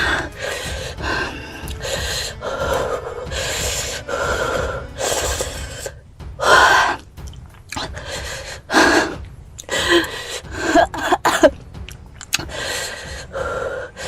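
A person gasping, coughing and breathing hard in short irregular bursts, the reaction to the burning heat of an extremely hot chili chip.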